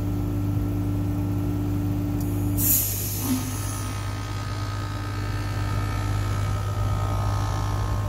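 Rheem package heat pump running with a steady hum; nearly three seconds in, its reversing valve shifts with a sudden loud whoosh of refrigerant that fades over about a second, and the running tone changes afterwards. The switch is the sign that the reversing valve and its thermostat wiring are working as the unit changes between cooling and heating.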